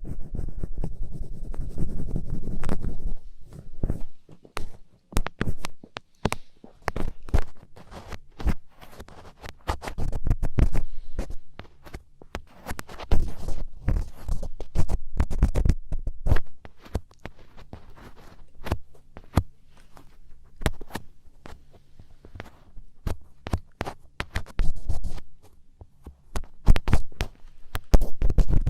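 Ear pick scraping firmly in ASMR ear cleaning: dense, uneven runs of scratchy clicks and scrapes, coming in clusters, with heavy low rumbling stretches mixed in.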